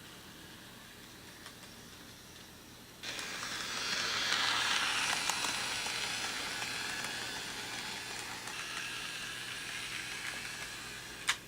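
A loud hiss starts suddenly about three seconds in, swells, then slowly fades over several seconds and ends with a sharp click.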